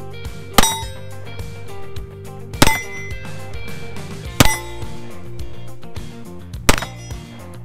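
Four shots from a SIG P365 XL 9mm pistol, about two seconds apart, each followed by the brief ring of a steel plate target being hit.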